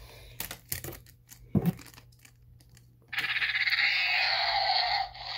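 Plastic toy figures handled with a few light knocks and clacks. About three seconds in comes a loud raspy screech lasting about two and a half seconds: a child voicing a monster's cry during a toy fight.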